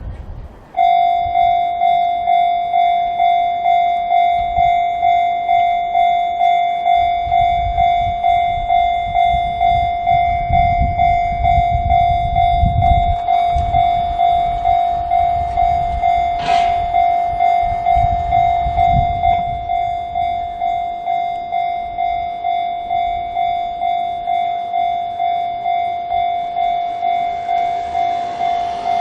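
Railway level-crossing warning bell of the Chichibu type starting about a second in, ringing in even, repeated electronic dings. A train rumbles over the crossing through the middle, with one sharp click partway through.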